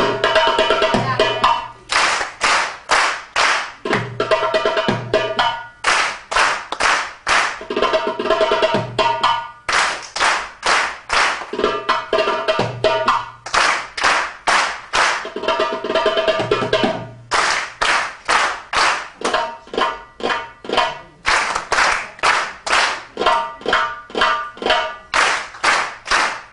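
Darbuka (Arabic goblet drum) drumming: fast runs of sharp, ringing high strokes with a deep low stroke every few seconds, in a repeating rhythm broken by short gaps between phrases.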